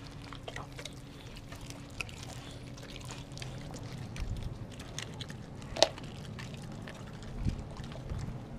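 Dogs licking and gnawing raw chicken close to the microphone: wet smacking and many small clicks, with one sharp louder click about six seconds in.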